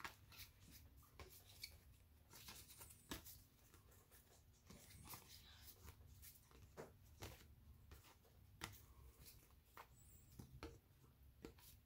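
Faint, irregular clicks and short scrapes of baseball cards being slid one by one off a hand-held stack, the cards scratching against one another.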